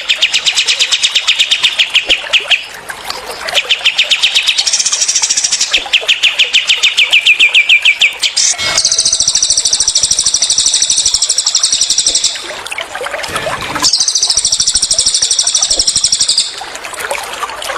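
Songs of cililin and kapas tembak birds in rapid trilled bursts. First come fast runs of sharp repeated notes, some sliding down in pitch. Then two long, dense, high-pitched trills follow, over faint trickling water.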